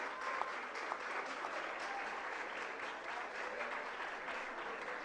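Audience applauding in a hall, dense clapping that slowly fades.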